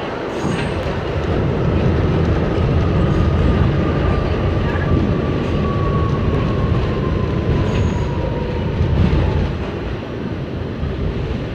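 NYC subway train running through a tunnel, heard from inside the car: a steady, loud rumble of wheels on rail, with a faint high tone slowly falling in pitch through the middle. The rumble eases a little near the end.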